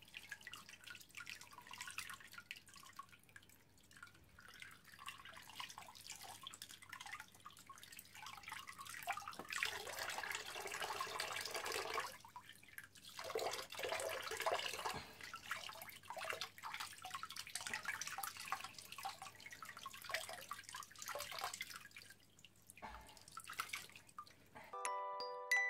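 Water splashing and dripping in a plastic basin as a small puppy is washed and rinsed in it, with louder splashing about ten and fourteen seconds in. Near the end a music tune of bright, bell-like notes starts.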